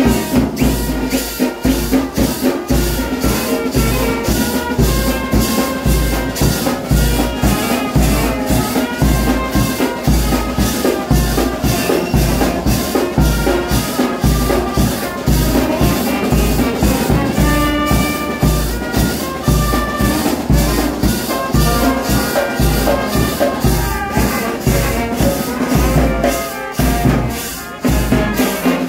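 Brass band playing a tune: trumpets carry the melody over snare drum, bass drum, crash cymbals and a pair of hand shakers, with a steady beat of about two strokes a second.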